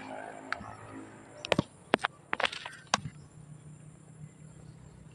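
Ripe vanilla beans being snapped off the vine by hand: a quick cluster of sharp snaps and crackles about one and a half to three seconds in.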